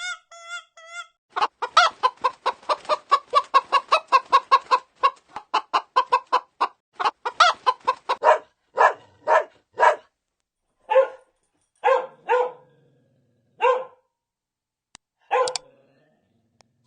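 Chicken clucking: a fast run of short clucks, several a second, that slows to single, spaced clucks in the last few seconds. A few short, higher-pitched calls come just before the clucking starts.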